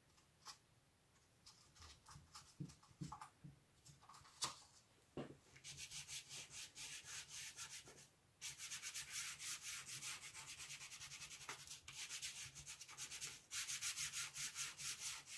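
Fingers rubbing chalk pastel into paper to blend it: runs of quick back-and-forth scratchy strokes, several a second, starting about six seconds in with short pauses. A few faint clicks come before it.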